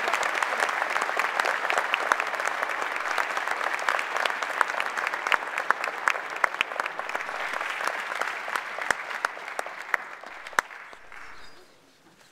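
Audience applauding, with many separate claps standing out; the applause tapers off and stops about a second before the end.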